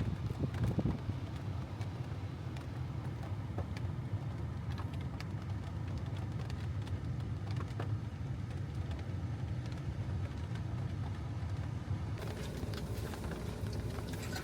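Steady low road and engine rumble of a car driving, heard from inside the cabin, with a few small clicks and knocks; the hiss grows brighter near the end.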